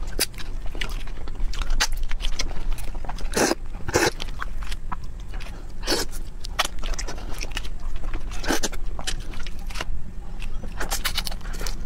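Close-miked peeling and eating of raw giant red shrimp. Shells and heads crackle and snap as they are pulled apart by hand, mixed with wet chewing of the raw meat. The clicks come irregularly, several a second, with a few louder snaps scattered through.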